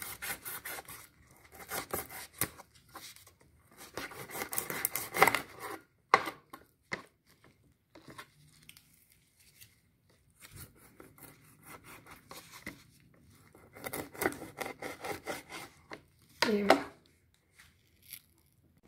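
Large knife cutting raw chicken wings in half on a plastic cutting board: irregular runs of scraping, sawing strokes with sharp knocks of the blade on the board. A short falling sound comes about three-quarters of the way through.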